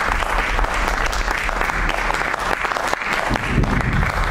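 Theatre audience applauding: a dense, steady patter of many hands clapping.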